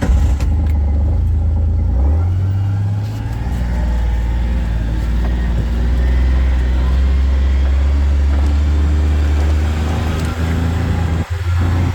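Vehicle engine running as the vehicle drives off, a loud, steady low drone that shifts in pitch about two seconds in.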